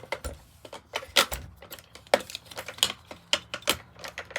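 Pliers and small metal parts clinking and clicking irregularly while a stuck washer and screws are worked loose from a vacuum cleaner's head: a quick run of sharp metallic ticks and clinks.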